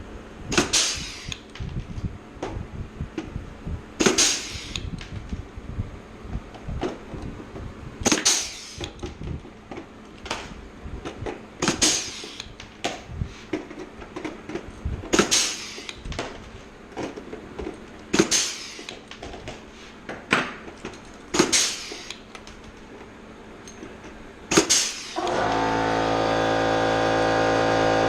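Blind rivets being pulled one after another into aluminium flaperon skin, each ending in a sharp snap as the mandrel breaks, roughly every three to four seconds, with light handling clicks between. Near the end, steady music comes in and stays louder than the riveting.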